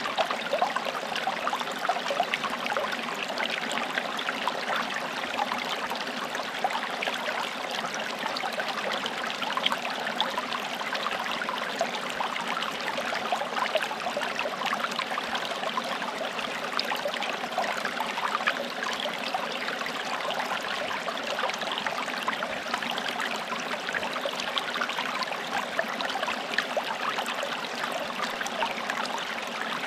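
Small forest stream running and trickling steadily over stones, a continuous babble of small splashes.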